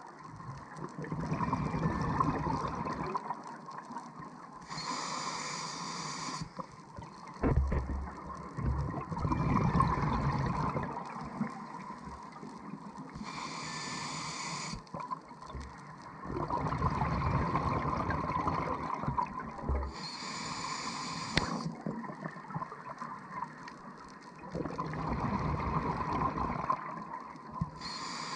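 Underwater breathing of a scuba diver through a regulator, four breath cycles: each short hiss of an inhalation is followed by a longer rush of bubbling exhaled air.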